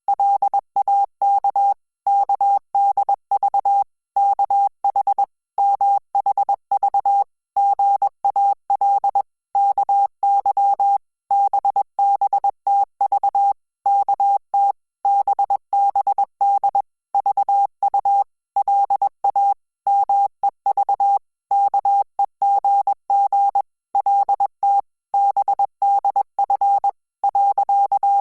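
Hangul (Korean) Morse code sent as one steady beep keyed on and off in dots and dashes at 20 words per minute, with short gaps between letters and words.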